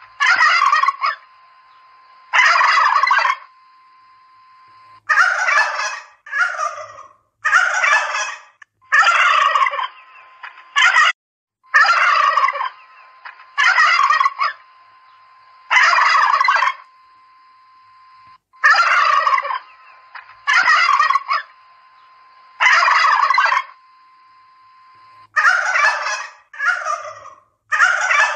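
Domestic turkeys gobbling: one rattling gobble after another, about every one to three seconds, some coming in quick pairs as birds answer each other.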